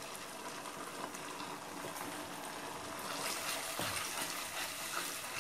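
Cornflour-thickened szechuan sauce bubbling in a pan as it comes to the boil: a steady bubbling hiss with a few faint clicks.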